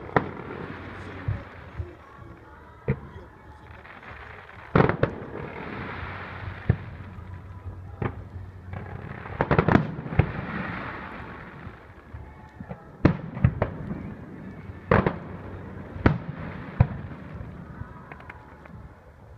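Fireworks display: shells bursting in irregular sharp bangs, some in quick clusters of two or three, over a continuous background haze.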